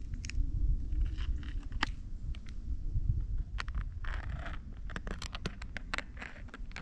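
Wind rumbling on the microphone while a mountain bike rides uphill on a track, with many sharp clicks and crunches from the tyres and bike, coming thicker in the second half.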